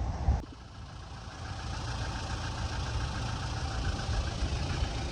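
An engine running steadily: a low rumble with a faint, fast, even pulsing above it. The sound changes abruptly about half a second in, at an edit.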